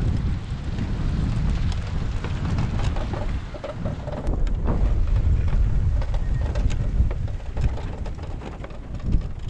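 Strong, gusty storm wind buffeting the microphone: a loud low rumble that swells and eases, with a few scattered clicks and rattles.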